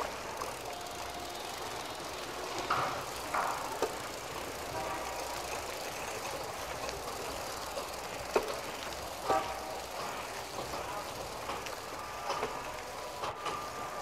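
Bicycle sound-effect recording: a steady rushing noise with scattered clicks and rattles, and a few brief high squeaks.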